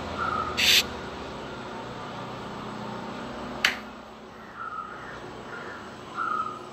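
A few short squeaky calls from an animal, each a fraction of a second, over a faint steady background hum, with a brief loud hiss just under a second in and one sharp click a little past halfway.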